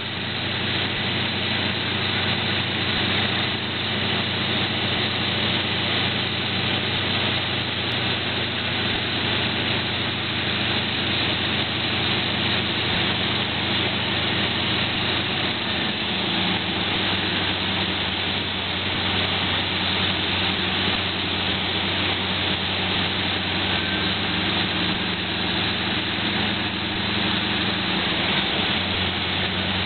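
De Havilland Beaver's radial engine and propeller running steadily, heard from inside the cabin during the landing approach, with a slight change in engine note about halfway through.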